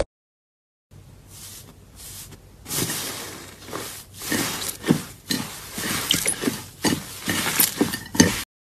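Slime being squished and pressed by hand, starting about a second in: irregular squelches, crackles and small pops, a few a second.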